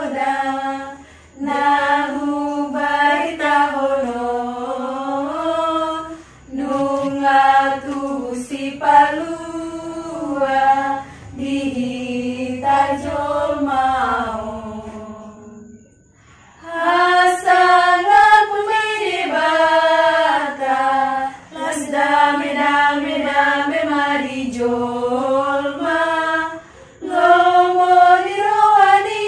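Unaccompanied group singing, held notes sung in phrases with short breaks between them and a longer pause about halfway through.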